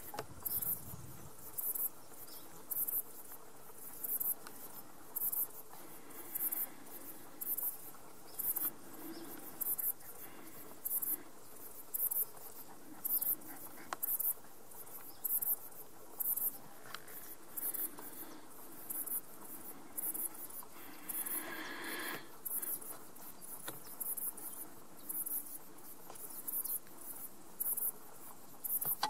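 An insect chirping, short high-pitched pulses repeated steadily at about three every two seconds, over faint outdoor background.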